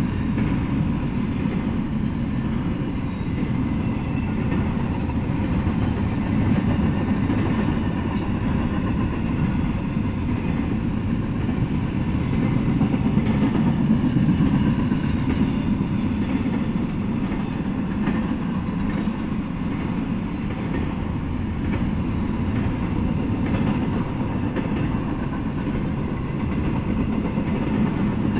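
Double-stack intermodal freight train rolling past, a steady rumble and rattle of the well cars' wheels on the rails.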